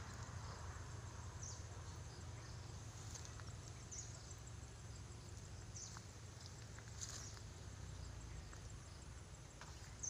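Faint outdoor field ambience: a low steady rumble with about half a dozen brief high chirps scattered a second or two apart.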